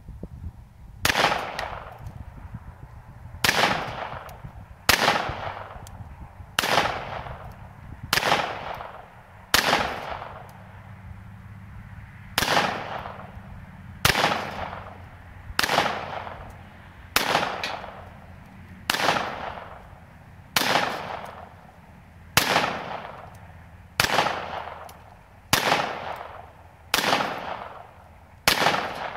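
.22 LR Uzi pistol firing single shots, about seventeen of them, roughly one every one and a half seconds, each crack trailing off in a short echo.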